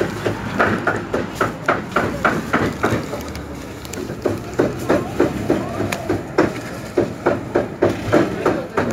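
Rapid, even knocking, about three to four strokes a second, of a knife chopping on a cutting board.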